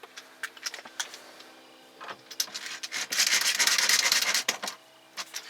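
Screwdriver driving the trim screw back into the plastic dash, a few light clicks followed by a grating noise of about two and a half seconds as the screw turns in.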